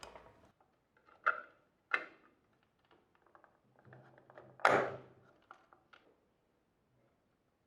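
Plastic parts of a Nespresso capsule coffee machine being handled and fitted together: a few short clicks and knocks, the loudest about halfway through.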